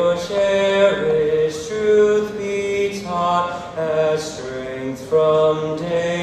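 Music: a group of voices singing slow, held notes in harmony, chant-like, the notes changing about once a second.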